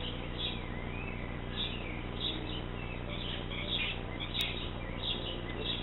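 Small birds chirping in short repeated calls over a steady low hum, with one sharp click a little past halfway.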